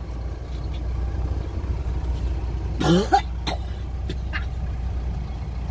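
A man coughing from the burn of very spicy bakso (meatball soup): one loud cough with a rising pitch about three seconds in, followed by a few short, sharp coughs, over a steady low rumble.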